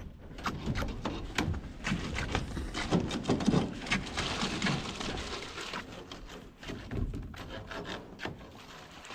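Irregular knocks and scraping on wood, many short strikes through, busiest in the middle few seconds.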